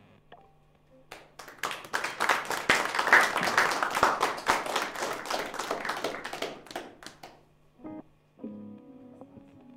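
Small audience clapping after a song ends, starting about a second in, swelling, then dying away after about six seconds. Near the end, a few quiet electric guitar notes are picked.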